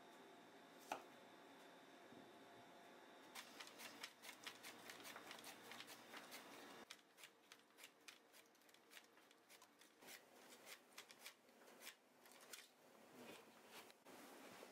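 Cauliflower being shaved on a mandoline slicer: a faint, quick run of short scraping strokes, several a second, starting about three seconds in, as a faint steady hum stops.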